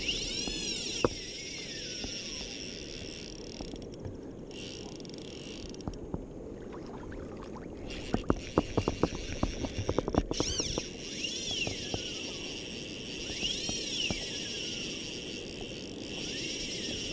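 Fly reel's drag whining as a running fish pulls line off the spool. The pitch rises and falls with the speed of the run and cuts out briefly a couple of times. A quick string of clicks and knocks comes just past the middle, over a steady rush of wind and water.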